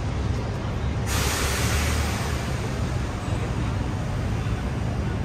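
Heavy vehicle's air brakes releasing: a sudden loud hiss of compressed air about a second in that fades away over the next two seconds, over the low rumble of street traffic.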